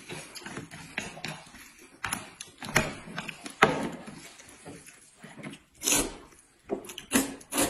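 Noodles being slurped and chewed off chopsticks: a run of short, uneven slurps, the loudest about six seconds in and again just before the end.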